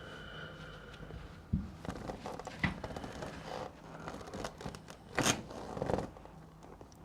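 Rustling and scuffing of clothing against a treatment table as a patient is moved into a stretch, with a soft thump about one and a half seconds in and a louder rustle near the end.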